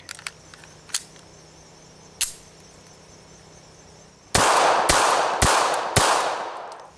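Bersa Thunder 380 pistol firing four .380 ACP shots in quick succession, about half a second apart, each report trailing off in echo. A few faint clicks come before the shots.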